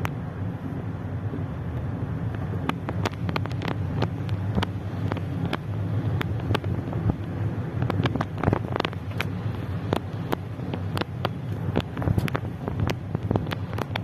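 Heavy rain heard from inside a moving car: drops strike the roof and windscreen as many sharp, irregular taps over the steady low rumble of the road and engine.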